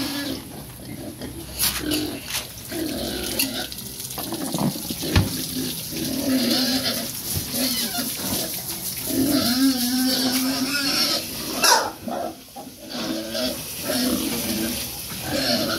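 Three-month-old pigs grunting and squealing as they crowd in to feed, with louder squeals at about six and nine seconds in and a few sharp knocks.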